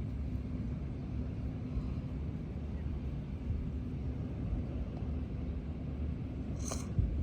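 Steady low rumble of outdoor background noise, with a brief hiss near the end.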